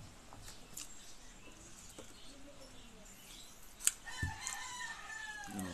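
A rooster crowing once, a drawn-out call in the second half that falls in pitch at its end, just after a sharp click.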